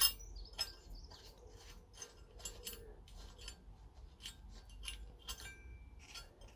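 Light, irregular metallic clicks and clinks as a steel Summit Racing universal engine lift plate is shifted into place over the intake manifold studs, washers and nuts of a Ford Y-block V8, with the sharpest click right at the start.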